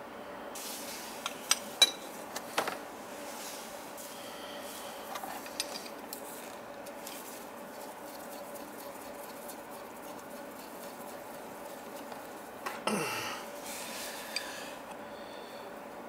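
A wrench and the brass nozzle assembly of an oil burner clicking and clinking as the nozzle is worked off. There are a few sharp clicks in the first three seconds, more around five seconds in and a short rustle about thirteen seconds in, over a faint steady hum.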